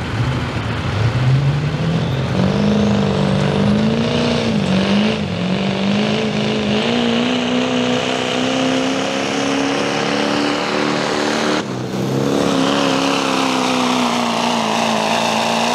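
Diesel Ford Super Duty pickup's engine at full throttle pulling a 40,000-pound weight sled. It revs up over the first two seconds, then holds at high revs with the pitch wavering slightly, with a brief break about twelve seconds in.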